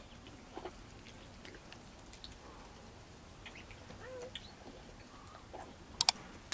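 Quiet eating sounds: bites into soft gutab flatbread with faint crackles and small clicks, and a sharp double click near the end.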